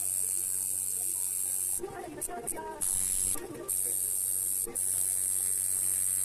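Tattoo machine running as the needle works the skin: a steady electric hum with a high hiss over it, which dips briefly a few times.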